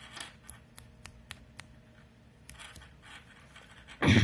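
Handling of a USB charging cable and its packaging: a run of small clicks, some rustling, then a single loud thump near the end.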